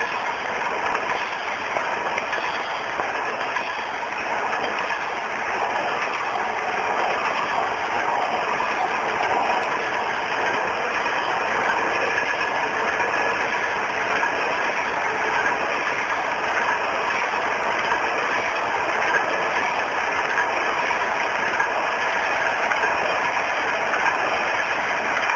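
HP-250C-PS peel-and-seal pocket envelope making machine running steadily: a continuous, even mechanical clatter of its rollers and feed mechanism.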